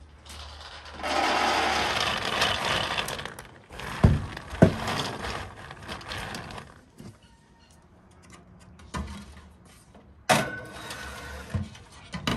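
Shelled hazelnuts poured from a bowl into a metal baking tray, a loud rattling pour lasting a couple of seconds, then two sharp knocks and the rustle of the nuts being spread by hand. Near the end a knock and a clatter from the countertop oven as the tray goes in.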